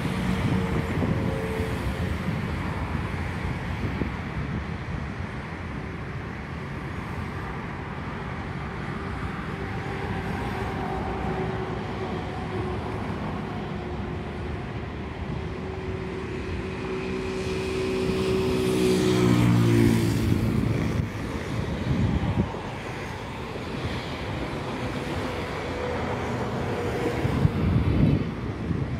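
Road traffic running steadily. About two-thirds of the way through, one motor vehicle passes close, its engine note dropping in pitch as it goes by.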